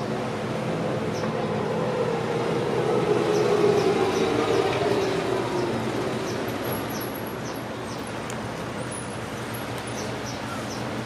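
A low mechanical hum that swells a few seconds in and fades back, with faint short bird chirps over it.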